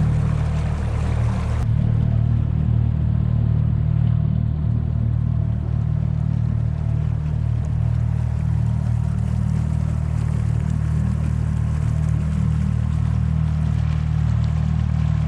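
Boat motor running at a steady speed, a constant low hum with no change in pitch.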